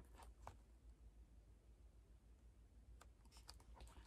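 Near silence with a faint low hum, broken by a few faint clicks from a hardcover picture book being handled: one about half a second in and a small cluster near the end as the book is swung back.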